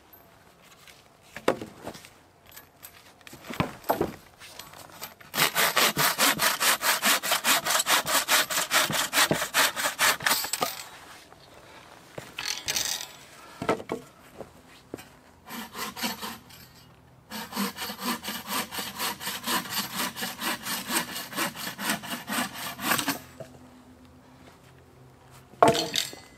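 Wooden-framed bucksaw cutting birch poles to length with quick back-and-forth strokes, in two runs of about five to six seconds with a pause between. A few wooden knocks from poles being handled, and a sharp knock near the end.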